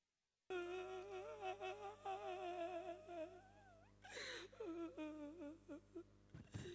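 Male Hainanese opera actor's drawn-out wailing cry with a wavering pitch, starting about half a second in, then a sharp gasp about four seconds in and broken, sobbing cries: stylised weeping on stage.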